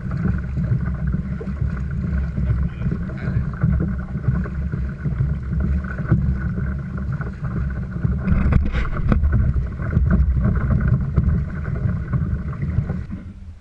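Wind buffeting the microphone out on the water: a steady low rumble that cuts off abruptly near the end.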